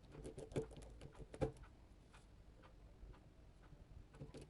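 Faint small clicks and ticks of a precision screwdriver turning the tiny screws of a smartphone, with two sharper clicks in the first second and a half and a few more near the end.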